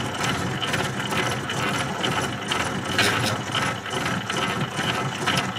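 Milling machine taking a light cut with a multi-toothed cutter, its spindle turning at about 172 rpm, close to its slowest before it stalls: a continuous rattle of quick, irregular clicks.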